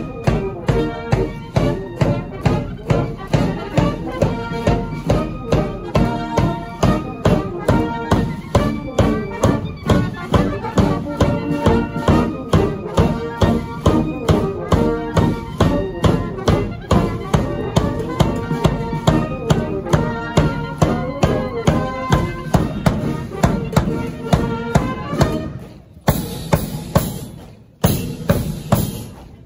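Military brass band and bugles playing a march while on the move: brass and bugles carry the tune over a steady beat of bass drum and cymbals, about two beats a second. The music breaks off briefly near the end.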